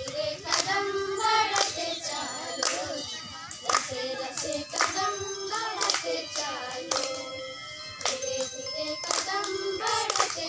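A group of girls singing a Hindi song in unison, with a sharp hand clap keeping time about once a second.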